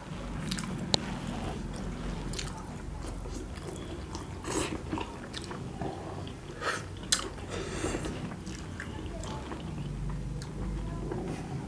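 Chicken momo dumplings being bitten and chewed without hands, with irregular wet smacks and sharp clicks over a steady low hum.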